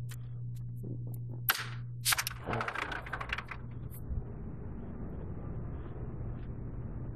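Sliding glass balcony door being opened: a sharp clack about one and a half seconds in, then a rattling run of clicks for about a second and a half as the door slides. After that a steady hiss of outdoor air and city noise takes over.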